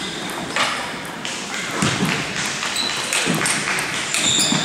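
Table tennis rally: a celluloid ball ticking back and forth off paddles and table, a sharp strike about every half-second.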